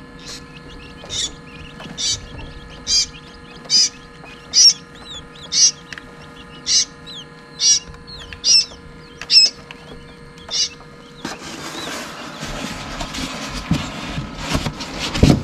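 Newly hatched chicks peeping in an incubator: one loud, high peep about every second, with softer chirps between, over a faint steady hum. About three-quarters of the way through, a hand rubbing and scraping against the foam incubator shell takes over, ending in a knock.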